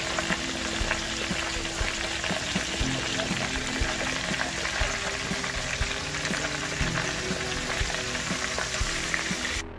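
Breaded pork steaks deep-frying in canola oil in a cast iron Dutch oven: a steady, dense crackling sizzle of the hot oil bubbling around the meat.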